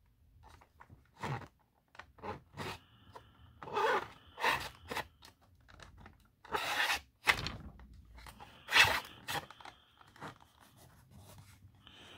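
Large plastic Spawn action figure being handled and turned on its stand: irregular plastic clicks, knocks and scrapes as the sculpted cape rubs and shifts, with a few brief creaks.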